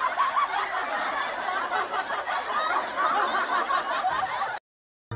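Canned laugh track: many people chuckling and giggling together in a dense, steady mass that cuts off abruptly near the end.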